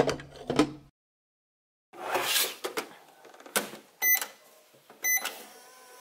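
Just Like Home plastic toy microwave: a glass set down inside with a couple of clunks, the plastic door shut and clicked, then two short electronic button beeps about a second apart. Near the end the toy's steady running hum starts as its timer begins counting down.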